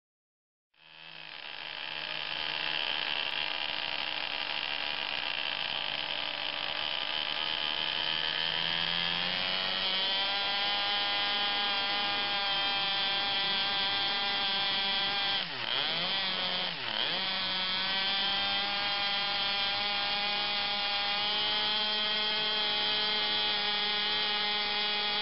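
Small combustion engine of an RC model airplane running on a ground stand with a steady buzzing. Its revs step up about a third of the way in, then drop sharply twice in quick succession midway and climb straight back to a high steady run.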